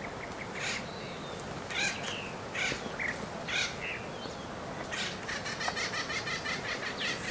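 Wild birds calling in the woods: a run of short, harsh caw-like calls, then a rapid chattering call from about five seconds in.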